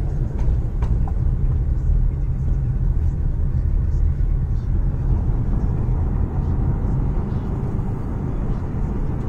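Steady low rumble of a car's engine and tyres heard from inside the cabin while driving slowly in city traffic.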